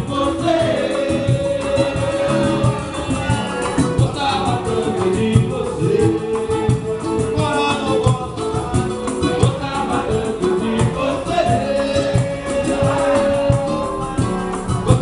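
Live samba: several voices singing together in long held lines over dense, rapid hand percussion.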